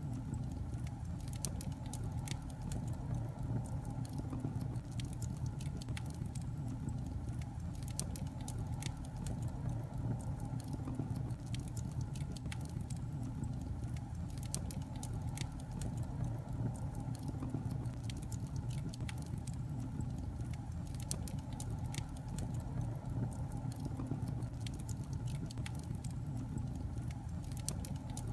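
Wood fire burning in a fireplace: many irregular, sharp crackles and pops over a steady low rumble of the flames.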